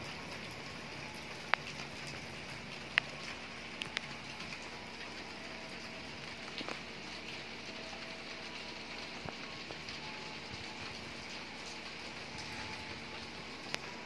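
Heavy rain falling steadily, with a few sharp clicks standing out above the even hiss.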